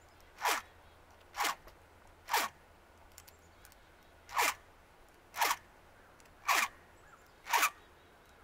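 File rasping across a chainsaw chain's cutter tooth to sharpen it, in short strokes about one a second: seven strokes, with a pause of about two seconds after the third.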